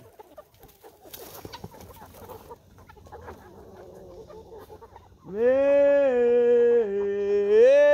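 A rooster crowing once, starting about five seconds in: one long call of about three seconds whose pitch steps down twice, then jumps back up before falling away at the end.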